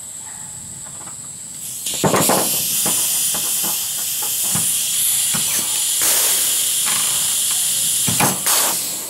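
Pneumatic pop rivet gun setting rivets: a long hiss of compressed air starting about two seconds in, with several sharp clicks as the jaws release and grab another bite on the rivet stem. The gun doesn't do a complete pull in one stroke.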